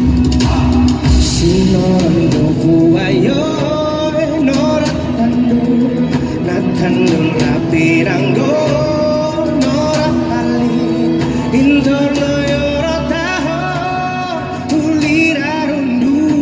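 A man singing a song live into a microphone over a recorded backing track with guitar, amplified through a PA; the vocal comes in after a couple of seconds of instrumental backing.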